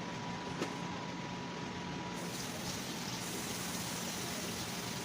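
Oil heating in a frying pan on the stove, a steady faint hiss that grows slightly brighter partway through as the oil nears frying temperature, over a low steady hum, with one light tick about half a second in.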